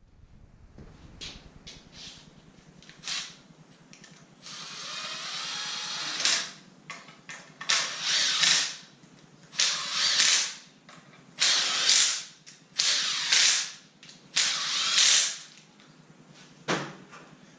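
A mechanical hand or power tool working in short repeated bursts, mostly in pairs, after a longer run of about two seconds near the start, typical of fasteners being turned in an engine-stand job.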